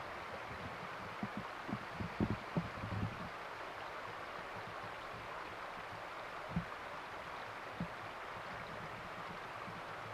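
Steady outdoor hiss, like a distant burn or wind, with a few soft low thumps clustered in the first three seconds and two single thumps later on.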